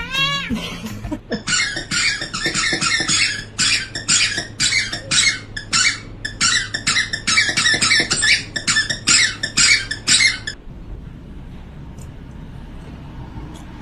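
A short rising squeak, then rapid, repeated high-pitched squeaking, several squeaks a second, that runs for about nine seconds and stops abruptly.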